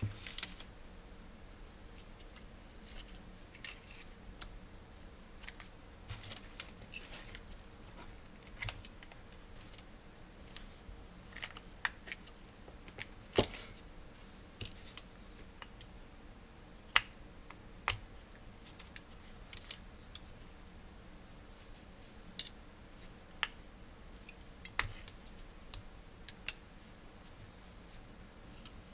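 Quiet clicks and handling noises of 18650 lithium-ion cells and small plastic parts: the cells taken out of a clear plastic battery case and pressed into a two-cell battery holder, with a handful of sharper clicks spread through.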